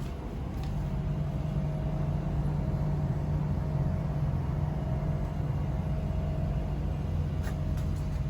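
Steady low mechanical drone with a faint high whine.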